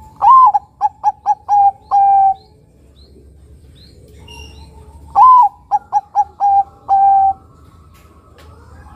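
Zebra dove (perkutut), a Bangkok–local cross, singing its cooing song twice: each phrase is a long first note, four quick short notes, then a held lower closing note, about two seconds in all. Faint high chirps of other small birds come between the two phrases.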